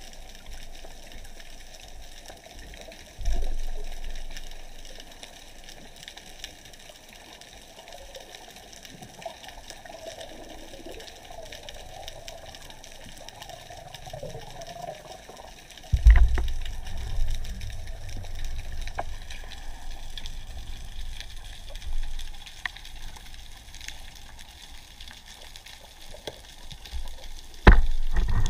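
Underwater sound heard through a camera housing while a speargun diver swims: a steady hiss of moving water broken by dull low knocks that fade, about three seconds in, the loudest about sixteen seconds in, and another near the end.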